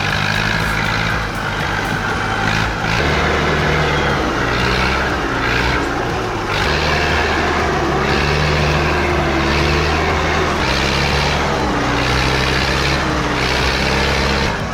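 A log truck's diesel engine runs steadily at working revs while powering its loader to swing logs onto rail cars. The engine pitch steps up and down a few times as the load changes.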